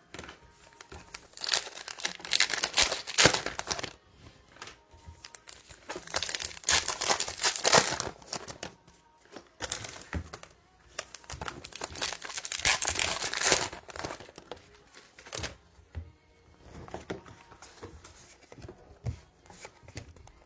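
Trading card pack wrappers being torn open and crinkled by hand, in several bursts of ripping and rustling with quieter pauses between.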